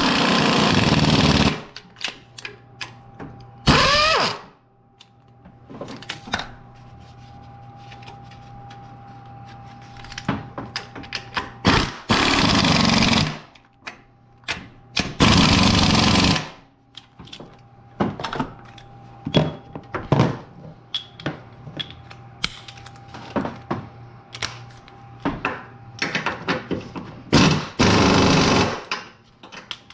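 Impact wrench running engine mount bolts in, in a series of short loud bursts of about a second each, one of them with a rising whine as it spins up. Clicks and tool handling come between the bursts.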